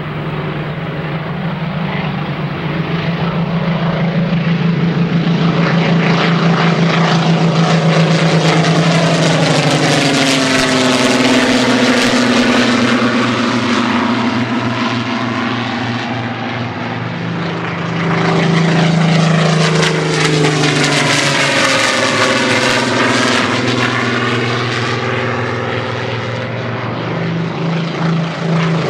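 Piston-engined WWII fighter planes taking off at full power in pairs and climbing out low overhead, their engines running with a deep steady drone. Twice, as a pair passes close over, the sound sweeps through a swirling, phasing change, about ten seconds apart.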